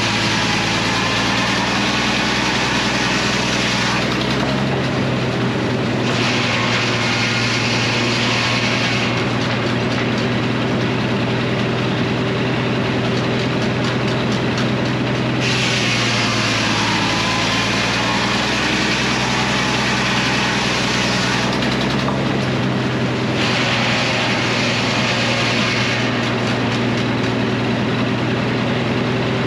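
Frick circular sawmill running, its blade cutting through maple four times in stretches of a harsh high sawing sound, the longest about six seconds near the middle, over the steady drone of the mill's engine between cuts.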